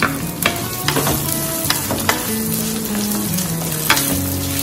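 Chopped small onions sizzling in hot sesame oil in a clay pot. A wooden spatula stirs them, scraping and knocking against the pot several times.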